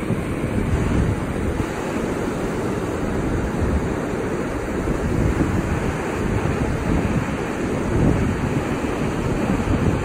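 Sea surf breaking and washing up a flat sandy beach as a steady rush of noise, with wind rumbling on the microphone.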